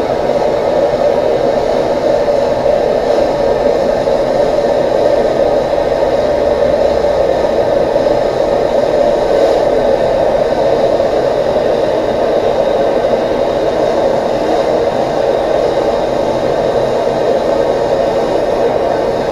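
Electric heat gun blowing steadily, heating a Loctited fork part to loosen the threadlocker so it can be unscrewed. It cuts off suddenly at the end.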